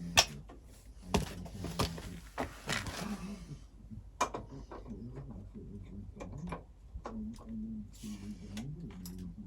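Scattered sharp knocks and clicks over a low, wavering hum, with a hiss during the first three seconds or so.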